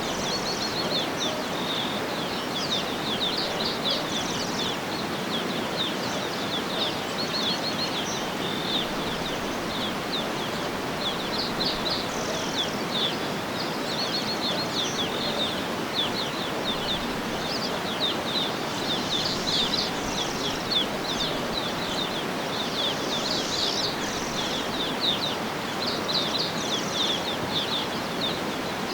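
Small birds chirping and trilling with many quick, high calls, over a steady even background noise.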